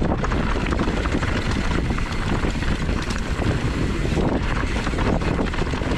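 Heavy wind rush on the microphone of a moving camera, with a constant clatter and knocking from a mountain bike running fast over rough, rooty trail.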